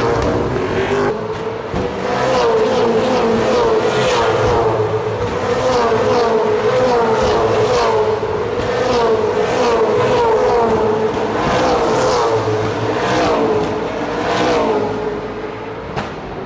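V8 Supercars race cars running on a street circuit, their engines revving up and down over and over as they come past. The sound eases off slightly near the end.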